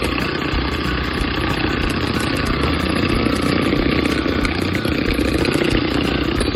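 Electric hand mixer running steadily, its beaters whipping egg whites.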